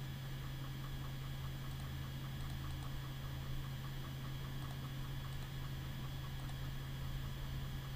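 Steady low electrical hum and hiss of a computer microphone's background noise, with a few faint mouse clicks.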